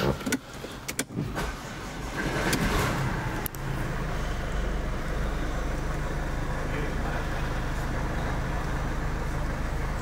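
Mercedes-Benz CLA's engine running, with a few sharp clicks in the first second and a swell in sound about two to three seconds in. It then settles to a steady idle hum.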